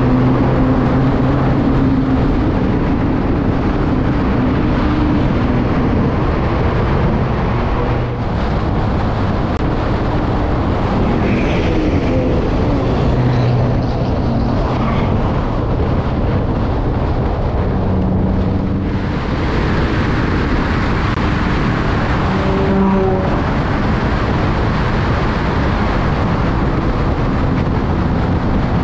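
Porsche 911 Carrera S flat-six engine running at speed, its note shifting a few times as the car speeds up and slows, under heavy wind and tyre noise on an outside-mounted microphone.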